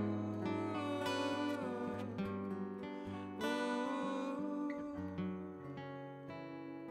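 Acoustic steel-string guitar played with a pick in a calm instrumental passage, the notes ringing on and growing quieter toward the end.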